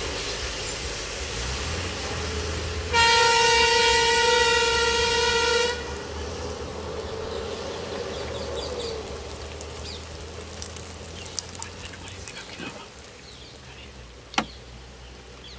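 A road vehicle's horn sounds one long steady blast of nearly three seconds, starting about three seconds in, over the low rumble of an idling engine.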